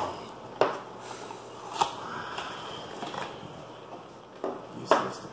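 About five light knocks and clacks as small plastic power adapters and packaged parts are set down on a table, with soft handling rustle between them.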